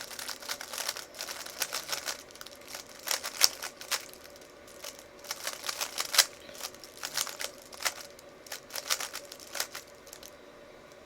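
A 3x3 Rubik's Cube being turned quickly by hand: rapid, irregular clicking and clacking of the layers, in quick runs with short pauses.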